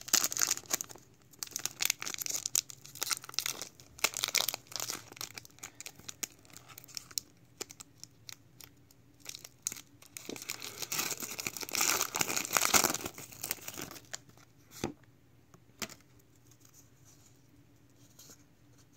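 Foil wrapper of a Pokémon trading card booster pack being crinkled and torn open by hand, in crackly bursts, busiest about 10 to 13 seconds in, then only a few light handling clicks near the end.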